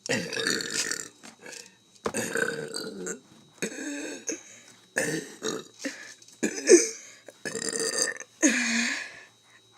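A person burping deliberately, about seven burps in a row, each half a second to a second long. The loudest is a short one a little past the middle, and the last one falls in pitch.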